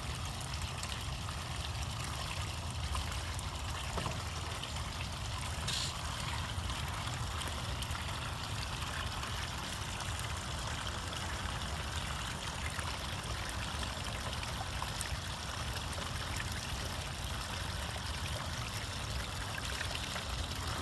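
Steady trickle of running water, with a low rumble underneath and a few faint clicks.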